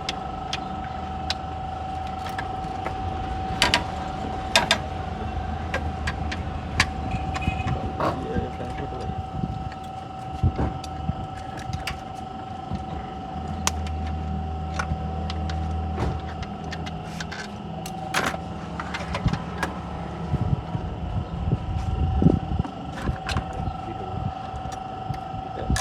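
Toyota Corolla XLi engine running, a low rumble under a steady high whine, with scattered sharp clicks and taps. This is the noise complaint that the workshop ties to the VVT-i system.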